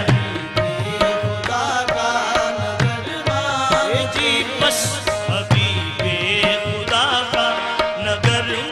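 A qawwali group singing a naat: male lead voices with chorus, accompanied by harmonium and tabla keeping a steady beat.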